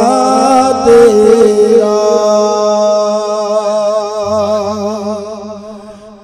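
Man singing an Urdu naat into an amplified stage microphone: he sings 'tera' twice, the second drawn out into one long note with a wavering vibrato that slowly fades away.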